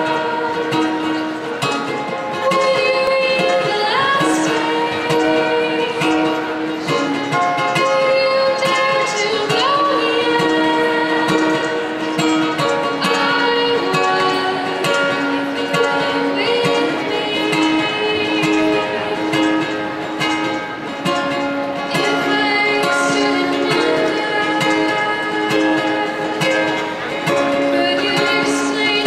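A young woman singing solo while strumming and picking an acoustic guitar, amplified through a microphone and PA in a large arena.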